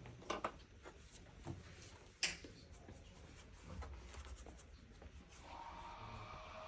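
Paintbrush brushing and dabbing on watercolour paper: light scratchy strokes, with a few small taps and one sharp click about two seconds in.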